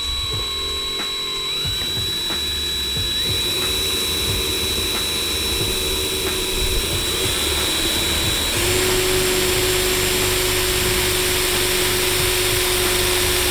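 Cordless drill running steadily with a small bit, drilling a pilot hole through a fiberglass spoiler into the trunk lid. Its whine shifts in pitch and gets a little louder about two-thirds of the way in.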